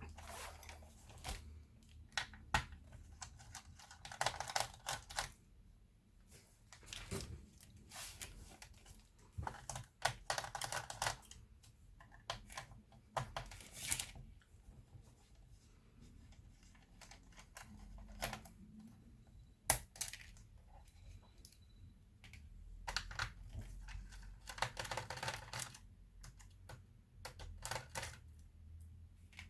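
Hands and small tools working on a laptop: scattered sharp clicks and taps of plastic and metal parts, with several scraping stretches about a second long.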